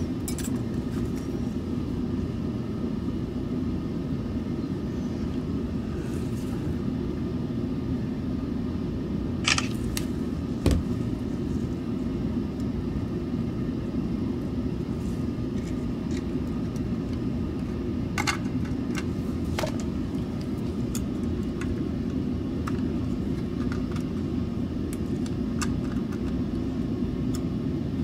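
Light clicks and taps of small plastic and metal parts of a Logitech G Pro X Superlight mouse being handled and fitted back into its shell, a few sharper clicks about ten and nineteen seconds in, over a steady low hum.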